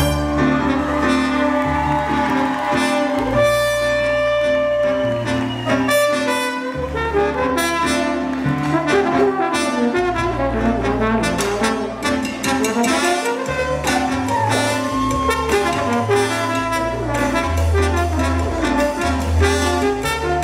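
Live salsa band playing, with trombones to the fore over electric bass guitar, congas and timbales.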